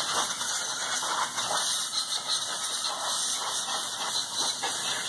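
Compressed-air blow gun hissing in uneven surges, blowing off a crankshaft during engine reassembly.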